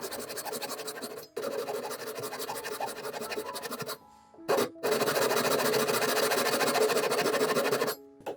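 A hand woodworking tool scraping wood in rapid, even strokes, over background music. The scraping breaks off briefly about a second in, again around four seconds in, and near the end.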